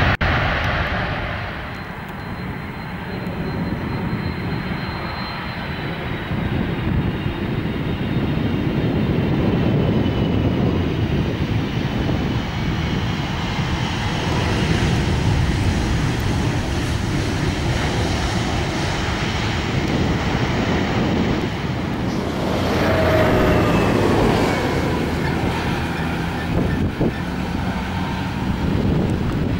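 Jet airliner engines at takeoff thrust, one aircraft after another (a large twin-jet, a four-engined KLM Boeing 747-400, a KLM Boeing 737): a continuous deep rumble, with a falling whine about three quarters of the way through.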